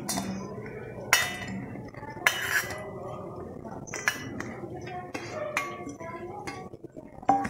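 Fingers scraping chopped tomatoes off a steel plate into a mixer jar, with about half a dozen sharp metallic clinks of the plate spread through.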